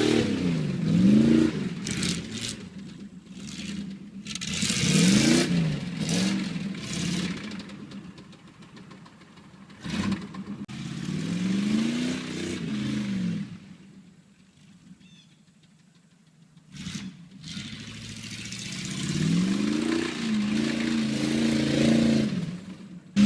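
GMC van's small-block Chevrolet 350 V8 revving up and back down again and again while the van spins donuts. Short bursts of rushing noise come in between the revs, and the engine drops to a quiet lull about two-thirds of the way through.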